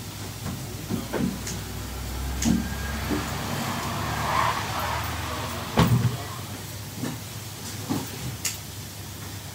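Fish market background: scattered knocks and clatter, the loudest about six seconds in, over a steady low hum.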